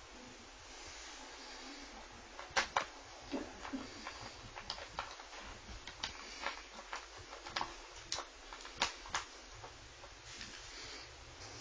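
Small sharp clicks and taps of a laptop's plastic screen bezel being handled and its small screws driven in with a screwdriver, irregular, from a few seconds in until near the end.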